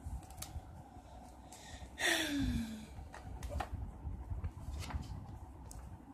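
Pages of a large glossy book being handled and turned, with light taps and a low handling rumble. About two seconds in, a short breathy voice sound slides down in pitch.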